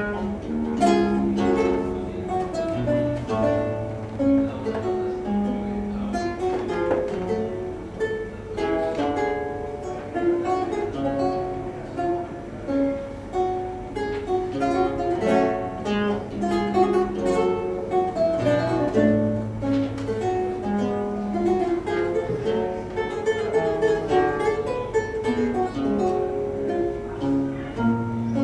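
Archlute played solo: plucked melody and chords over deep bass notes, part of a Baroque sonata in G minor.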